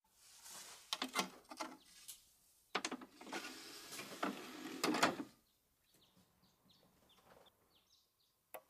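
CD player's disc tray closing and loading a disc, its mechanism whirring with a run of clicks and clunks over the first five seconds. A single sharp click comes just before the end, as a button on the player is pressed.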